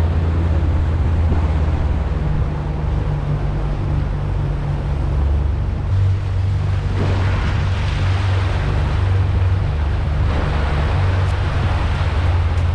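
Boat motor running steadily while under way, with wind and water rushing.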